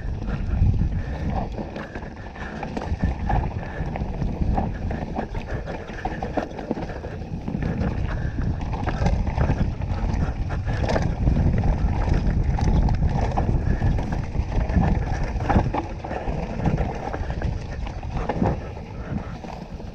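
Full-suspension mountain bike descending a rough trail: tyres rumbling over dirt and rock, with the bike knocking and clattering over bumps throughout. Wind buffets the helmet-mounted camera's microphone.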